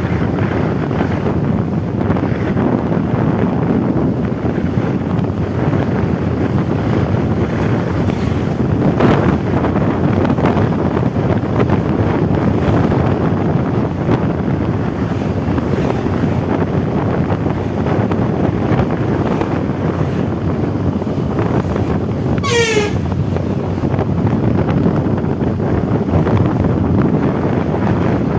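Wind buffeting the microphone of a moving scooter, over a steady rush of road and engine noise. About three-quarters of the way through, a short high chirping sound falls quickly in pitch.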